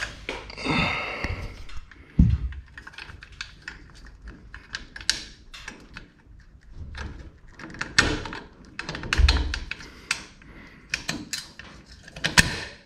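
Irregular metal clicks, knocks and rattles as a Genie belt-drive garage door opener's steel rail is worked into its header bracket, with a few heavier thumps among them.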